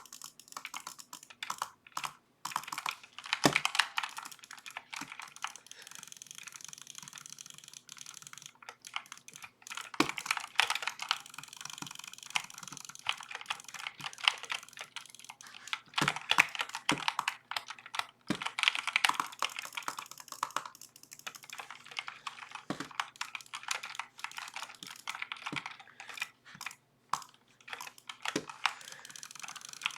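Typing on a Redragon K552 mechanical keyboard: runs of rapid key clicks with short pauses between them, picked up by a webcam microphone.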